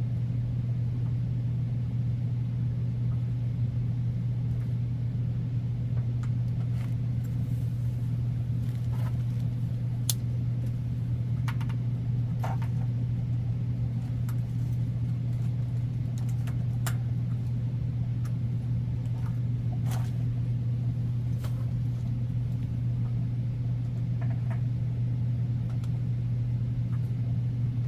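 Steady low hum throughout, with scattered faint clicks and taps from parts being handled.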